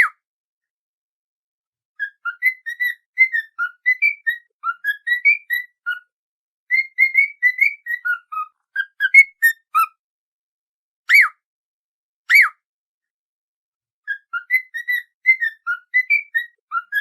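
Whistled tune for teaching a cockatiel: runs of short, quick notes that hop up and down in pitch, broken by single longer swooping whistles that rise and fall, one right at the start and two close together about eleven and twelve seconds in.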